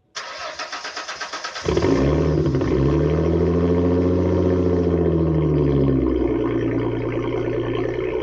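Ford Mustang 3.8-litre V6 with shorty headers and no muffler, cold-started: the starter cranks for about a second and a half, then the engine catches loudly, flares up and eases back down, settling to a steady fast cold idle about six seconds in.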